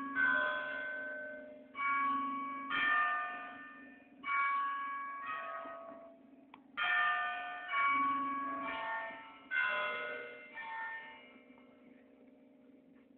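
Church tower bells ringing, several bells of different pitch struck in turn about once a second. The peal stops about eleven seconds in and the last strokes ring away.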